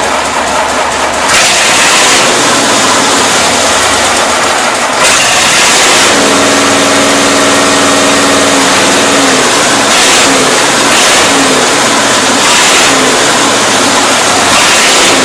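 A cold-started engine running loud, the level stepping up about a second in and again around five seconds in as it picks up revs.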